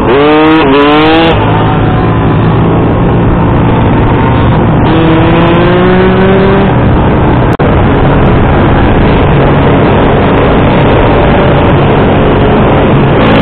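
Small motorbike engines at speed with wind rushing over the microphone: a steady engine drone runs under it, while a pit bike revs up through its gears in the first second or so and rises in pitch again about five seconds in. A brief break comes about seven and a half seconds in.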